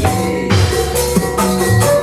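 Traditional percussion music with a steady beat: drum strokes that bend in pitch, ringing pitched metal tones and a continuous jingling rattle.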